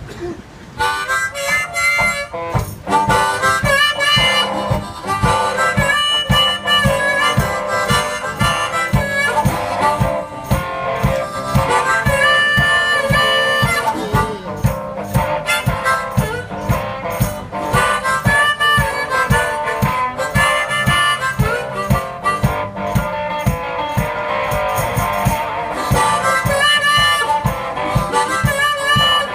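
A one-man band playing a blues instrumental: harmonica lead over guitar, with a steady low beat.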